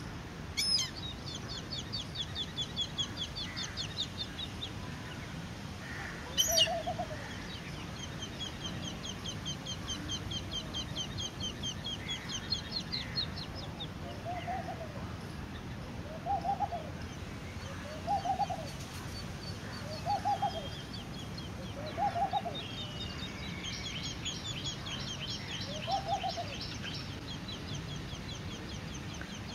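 Birds calling: runs of rapid, high chittering notes, a sharp squawk about six seconds in, and from about halfway a lower call repeated roughly every two seconds.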